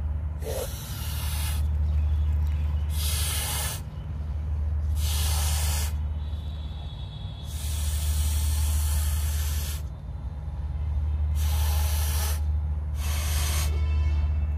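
A latex balloon being blown up by mouth: six breaths hiss into it one after another, one longer near the middle. A steady low rumble runs underneath.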